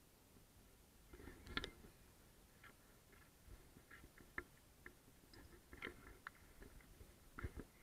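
Faint, irregular crunching and clicking of footsteps on gritty, debris-strewn tarmac, starting about a second in, with a few sharper clicks.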